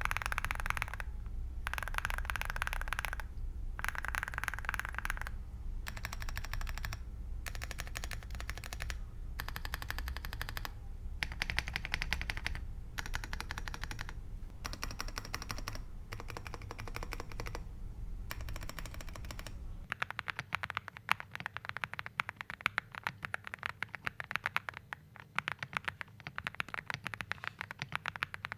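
Fast typing on a Zoom98 mechanical keyboard fitted with Diamond Avalon switches and Cloud MOA keycaps: rapid key clicks in bursts with short pauses. A low hum sits underneath and stops about two thirds of the way in, after which the typing runs on without pauses.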